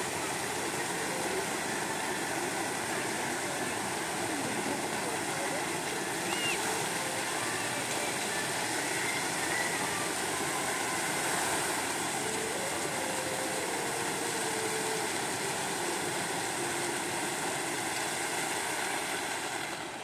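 Fountain water jets spraying and falling back into a pool, a steady rushing splash; it fades near the end as the jets shut down.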